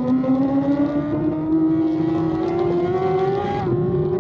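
An engine pulling under steady load, its pitch rising slowly throughout, with a brief break in the tone near the end.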